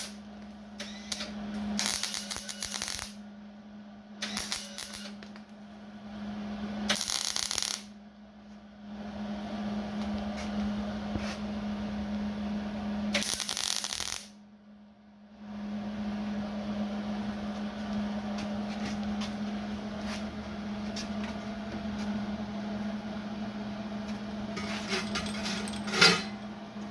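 MIG welder arc crackling and sputtering while weld is built up inside a worn, wallowed-out pivot hole of a skid steer control lever. There are several short bursts, then a longer continuous run from about halfway through, over a steady hum.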